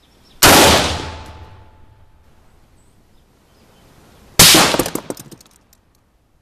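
Two rifle shots from a Smith & Wesson M&P15-T AR-15 firing .223 full metal jacket rounds, about four seconds apart, each dying away over a second or so.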